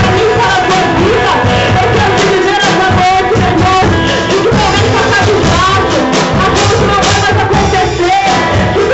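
Loud worship music, with a band keeping a steady beat and voices singing over it.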